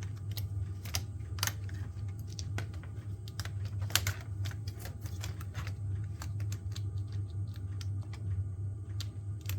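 Irregular small plastic clicks and taps of fingers working a laptop's internal connectors and plastic case parts, the loudest click about four seconds in. A steady low hum runs underneath.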